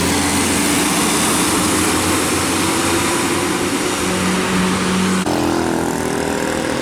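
A large bus's diesel engine running loudly, its pitch holding steady, with an abrupt change in the sound about five seconds in.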